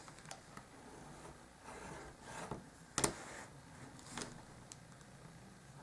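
Table knife scoring white cardstock along a quilting ruler's edge: faint scraping strokes, with one sharp click about three seconds in.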